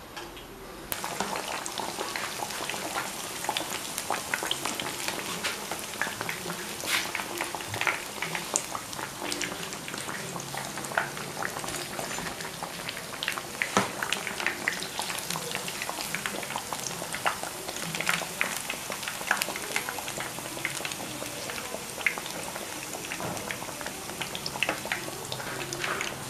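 Batter-coated fish pieces frying in hot mustard oil in a pan: a dense, steady sizzle with many sharp crackles and pops, starting suddenly about a second in.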